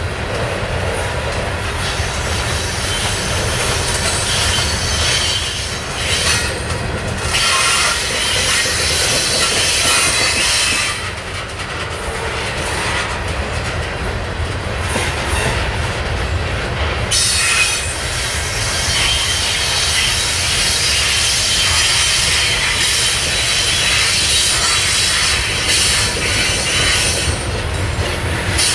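Open-top coal hopper cars of a slow-moving CSX coal train rolling past: a steady low rumble of wheels on the rails, with high wheel squeal that comes and goes.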